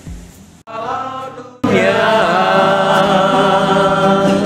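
Worship singing of an Indonesian praise song. It comes in quietly, then turns suddenly loud about a second and a half in, with long held notes.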